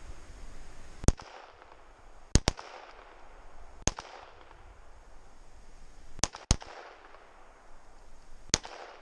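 Handgun shots fired at targets: seven sharp cracks at an irregular pace, each with a short echo, two of them coming as quick pairs.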